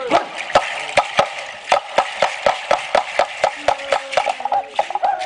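Dancers keeping a steady percussive beat, sharp strikes about four a second, with men's chanting voices over it that grow fuller near the end.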